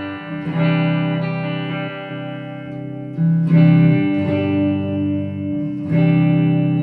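Cheap Fender-copy electric guitar played on its bridge pickup: chords strummed and left to ring, with a new chord struck about half a second in, another near the middle, and another near the end.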